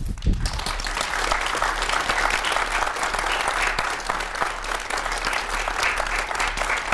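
Audience applauding, a dense, steady clapping that starts just as the song ends.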